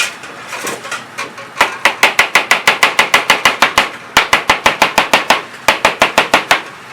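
Kitchen knife chopping fast on a cutting board, about seven strokes a second, in three quick runs with short pauses between them.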